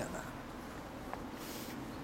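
Faint steady outdoor background noise, with a few light clicks and a brief hiss about one and a half seconds in.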